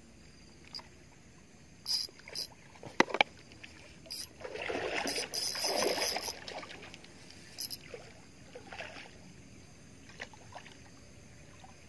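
Water splashing and churning for about two seconds near the middle: a hooked catfish thrashing at the surface of the pond while it is played on a bent casting rod. Before it come a few sharp clicks.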